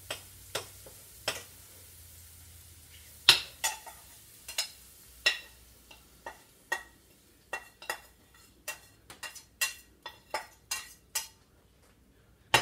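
A metal spoon scrapes and knocks against a skillet and a serving bowl while cooked vegetables are spooned out, giving a run of about twenty irregular clinks that ring briefly. The loudest knock comes about three seconds in.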